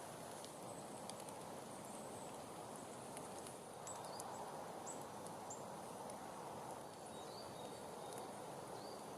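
Small woodland birds giving brief, high, thin calls several times from about four seconds in, over a steady background hiss.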